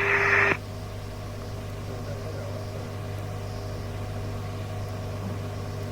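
A radio transmission cuts off about half a second in, leaving the steady low hum and faint hiss of the receiver between transmissions.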